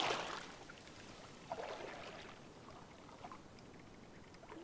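Legs wading through shallow lake water: a splash at the start as he steps forward, then fainter sloshing and lapping around his legs.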